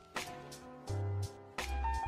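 Background music with a beat: drum hits over held bass notes and sustained melody notes.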